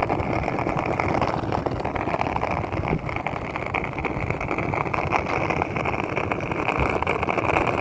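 Penny board's small plastic wheels rolling downhill on pavement: a steady gritty rumble with a hiss.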